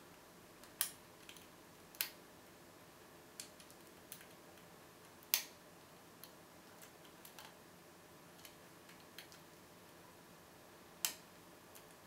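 Lock pick clicking irregularly against the pins inside a brass Vachette 7000 half euro cylinder as it is picked with a hook pick and tension wrench. Sharp, scattered clicks, four of them louder than the rest, spaced seconds apart.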